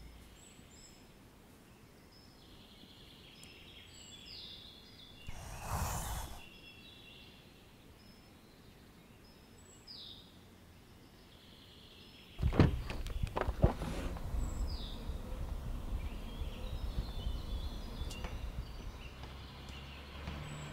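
Small birds chirping now and then over quiet outdoor background noise. About six seconds in there is a brief rushing noise. About halfway there are a few sharp knocks, after which a louder steady low background noise runs on.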